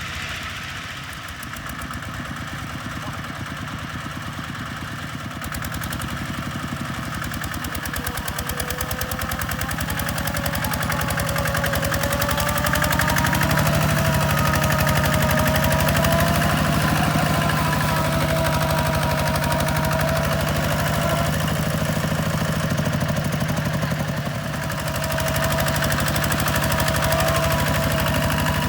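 A diesel engine running with a fast, even beat. About ten seconds in it grows louder and its note rises slightly, and it holds there with a short dip near the end.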